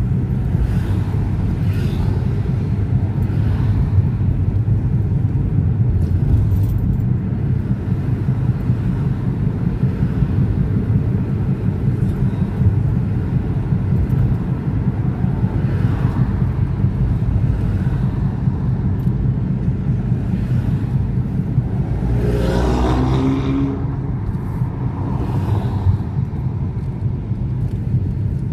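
Car driving in traffic, heard from inside the cabin: a steady low rumble of engine and tyre noise. About three-quarters of the way through, a brief rising engine note briefly stands out.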